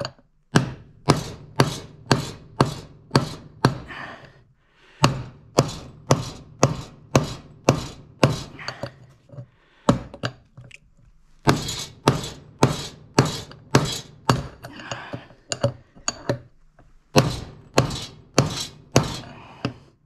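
Hammer blows on a steel drift rod, driving a worn drum bearing out of an 8.5 kg Haier washing machine's plastic rear tub. Sharp metal strikes come about two or three a second, in four runs with short pauses between.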